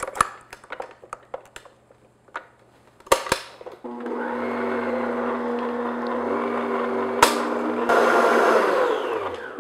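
Clicks and knocks as the whisk and head of an electric stand mixer are set in place, then about four seconds in the mixer's motor starts and runs steadily, whisking frosting in a glass bowl. It runs a little louder near the end, then winds down as it is switched off.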